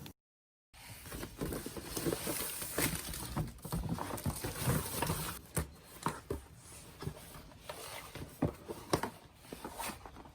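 Burning firewood crackling, with irregular sharp pops and snaps over a soft hiss. It drops out briefly at the start, then resumes.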